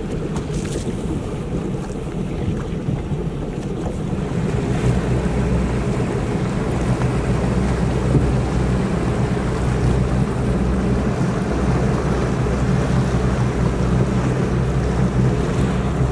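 A small motorboat's engine running steadily under way, getting louder about four and a half seconds in, with wind noise on the microphone.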